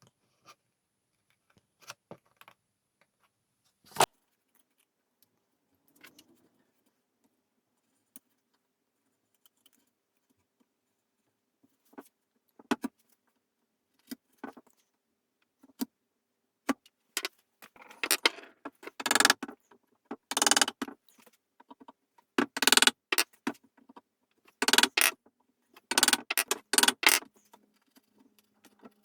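Hand work on the piece: scattered small clicks and taps with one sharper knock, then, a little past halfway, a run of short scraping strokes in quick bursts, with small metallic clinks.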